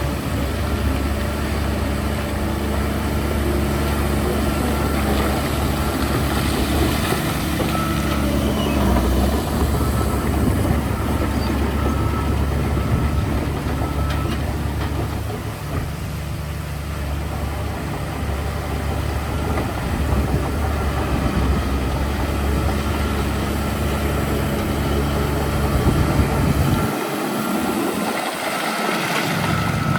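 Heavy diesel engine of a construction machine running steadily with a deep, even rumble. The low rumble briefly drops away near the end.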